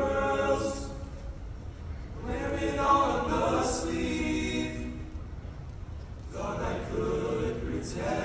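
Mixed-voice choir singing a cappella: sustained chords in three phrases with short pauses between them.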